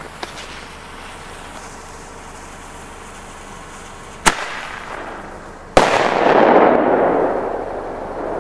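A lit firecracker fuse hissing, then two sharp bangs about one and a half seconds apart; the second, louder one is followed by a long rolling echo off the surrounding hills.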